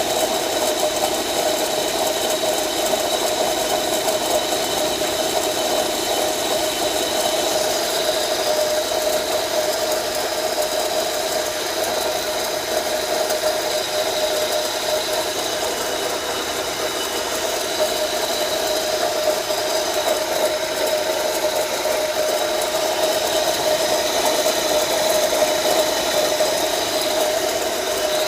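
Car engine idling with a steady whine from a bad air-conditioning compressor bearing.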